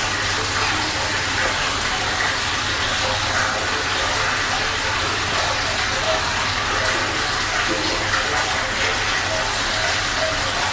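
Aquarium filtration running: a steady rush of water with a low, even hum underneath.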